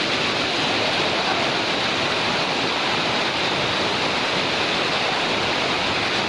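Waterfall pouring, a steady loud rush of falling water.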